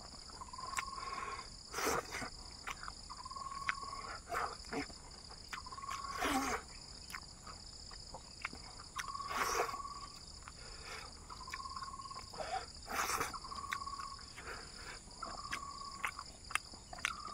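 Close-up eating sounds of a person eating fish by hand: wet lip smacks and chewing, with a few sharp smacks standing out as the loudest moments. Behind them, a steady high insect drone and an animal's short, even-pitched call repeating about every one and a half to two seconds.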